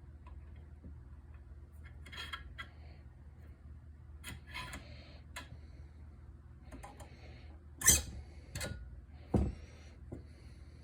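Clinks, scrapes and knocks of a metal AR-15 gas block and gas tube being worked onto a rifle barrel, with two sharper knocks about eight and nine and a half seconds in. A faint low hum runs underneath.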